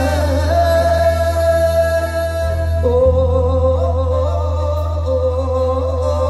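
Live mor lam singing over amplified stage accompaniment. A voice holds one long drawn-out note, then drops to a lower long note about three seconds in.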